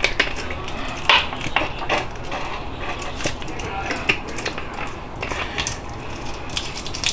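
Large plastic squeeze bottle of barbecue sauce squeezed upside down over chicken wings in a bowl: a run of irregular crackles and clicks as the thick sauce and air spurt out. The loudest comes about a second in.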